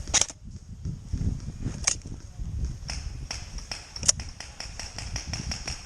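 Airsoft gunfire: a loud sharp crack at the start and a few single shots, then a rapid string of fainter shots about four to five a second, over low rumble from wind and rain on the microphone.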